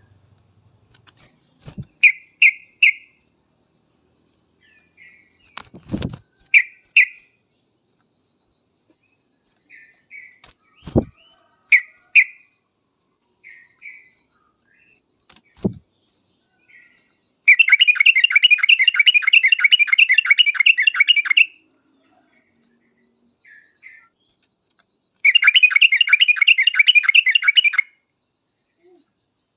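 Yellow-vented bulbul (trucukan) singing: scattered short chirpy phrases, then two long fast trills of rapidly repeated notes, the first lasting about four seconds past the middle and the second about three seconds, a few seconds later. A few sharp knocks come between the phrases.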